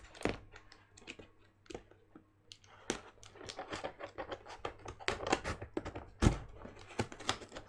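Cardboard shipping box being cut and pulled open with scissors: an irregular run of clicks, scrapes and taps of blades and cardboard, with a heavier thump about six seconds in.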